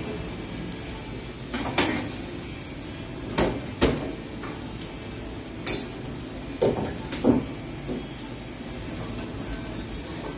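Irregular metal clanks and knocks, about seven of them, over a steady background rush, as the wood-fired arch of a 30" x 8' CDL maple sap evaporator is stoked: firebox door and wood being handled while the pans boil.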